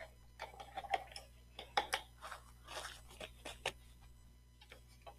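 A sheet of painting paper being turned and slid across a wooden desk, rustling and crinkling, with a few sharp clicks and taps.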